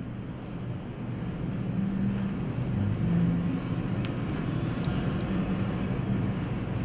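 A low steady rumble with a faint tick about four seconds in.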